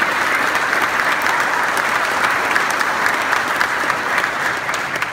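Audience applauding: many hands clapping steadily, beginning to die away near the end.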